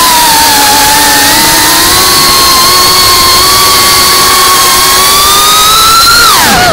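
A drone's electric motors and propellers whining loudly at a fairly steady pitch that wavers slightly. Near the end the pitch falls steeply.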